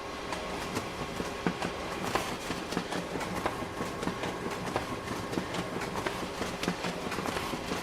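Photocopier running: a steady mechanical hum joined, just after the start, by rapid, uneven clacking that continues throughout.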